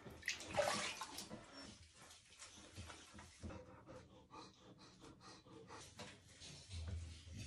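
A boxer dog panting softly in a string of quick breaths while it is washed in a tub of water.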